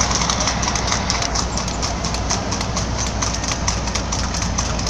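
A harness horse's hooves clip-clopping in a fast, even rhythm on tarmac as it pulls a sulky. Underneath is the steady low rumble of the following car's engine and road noise, heard from inside the car.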